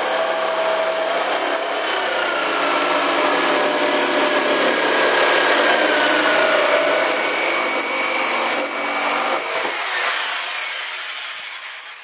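Electric jigsaw cutting a circle through the hard plastic lid of an ice chest: a loud, steady saw sound that thins out about nine and a half seconds in and fades away near the end as the cut is finished.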